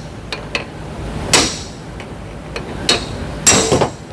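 A few sharp metallic knocks and clicks from work on a CV axle, with a louder one about a second and a half in and a short clatter near the end.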